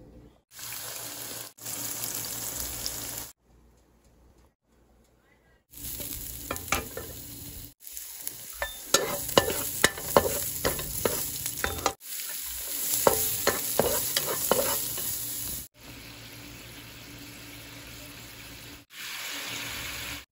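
Food sizzling in oil in a nonstick frying pan, with a spatula scraping and clicking against the pan while diced ginger and bell pepper are stir-fried. It comes in short clips that start and stop abruptly, with a near-quiet stretch about four seconds in.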